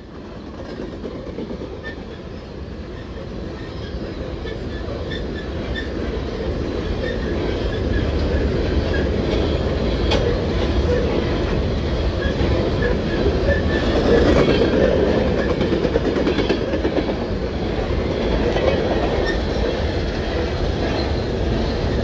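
Freight train of coal hopper cars rolling past on the rails: a steady rumble of the cars' wheels with a few faint clicks, growing louder over the first several seconds and then holding steady.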